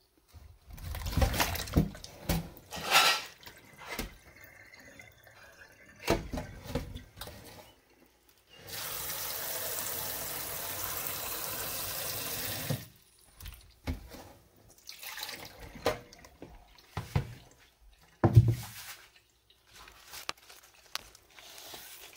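Water running from a kitchen tap into a cooking pot for about four seconds, with clatter and knocks of the pot being handled before and after. A sharp knock after the water stops is the loudest sound.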